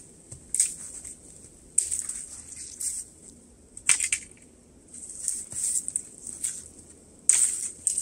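Dry spruce branches snapping and crackling as they are broken and cut off with a knife, in irregular bursts with rustling of the twigs and needles; the sharpest crack comes about four seconds in.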